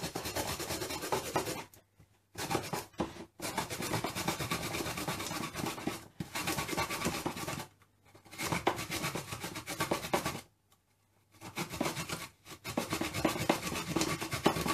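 Peeled fresh ginger root grated by hand on a plastic Tupperware grater plate set on a mixer jug: quick rasping strokes in several runs, broken by short pauses.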